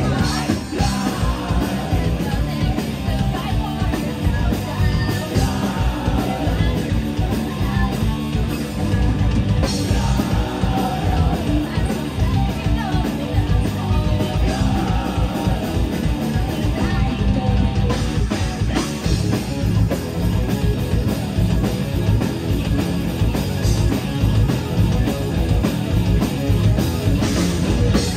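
Live rock band playing: distorted electric guitars, bass guitar and a drum kit, with a woman singing lead over them.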